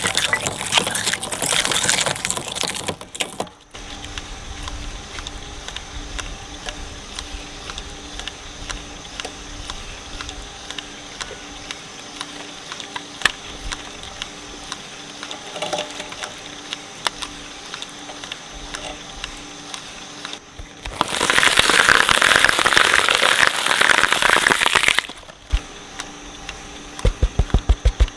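Shredder running: loud crunching as an object is torn apart, then the motor turning over empty with a steady hum and scattered small clicks, then another loud stretch of crunching and grinding. Near the end come rapid low thumps.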